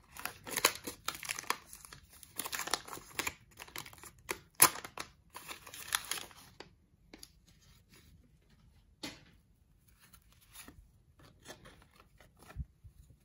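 A 1990 Fleer baseball card wax pack being torn open, with crinkling wrapper paper for about six seconds. After that come quieter, scattered rustles and clicks as the cards are handled.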